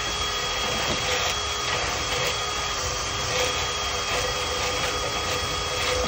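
Cordless drill running steadily, spinning a flexible rotary brush rod inside a clogged dryer vent duct, with a constant whine over a rushing noise as lint is driven out.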